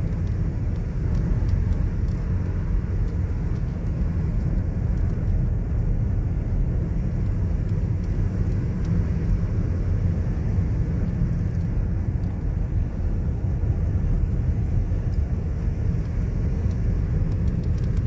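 Car driving on a sealed road, heard from inside the cabin: a steady low rumble of engine and tyre noise.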